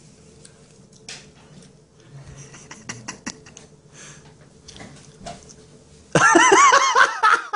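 Faint rustling and clicks over a low steady hum, then about six seconds in a man laughs loudly, a quick run of rising-and-falling pitched cries.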